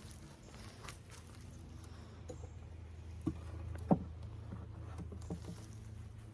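Beehive parts being handled as the hive is opened: scattered wooden knocks and light scrapes, the loudest a sharp knock about four seconds in, over a steady low hum.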